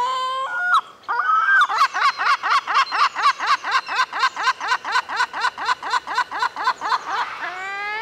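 Herring gull calling: a couple of long notes, then a long run of quick, evenly spaced notes, about four or five a second, for some six seconds, with rising notes near the end.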